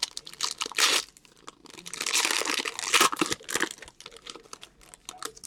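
Foil wrapper of a trading-card pack crinkling and tearing as it is handled and ripped open, in irregular crackly bursts. The longest and loudest stretch comes about two seconds in.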